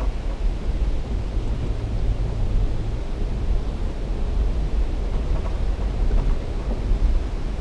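Off-road vehicle crawling over a gravel riverbed: a steady low rumble of engine and tyres on loose stones, mixed with wind buffeting the microphone.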